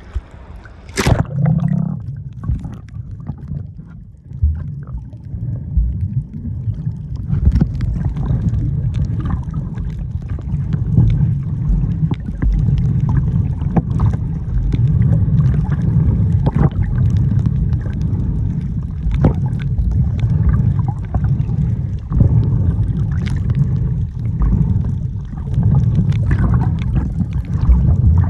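A camera going into the sea with a splash about a second in, then muffled underwater sound: a steady low rumble of moving water with scattered sharp clicks and crackles.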